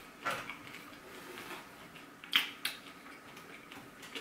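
Close-up mouth sounds of a person chewing food, with two sharp clicks close together about two and a half seconds in.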